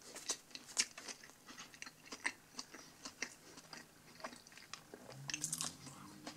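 A person chewing a mouthful of chilli cheeseburger, with irregular crunchy, wet clicks. There is a brief low hum near the end.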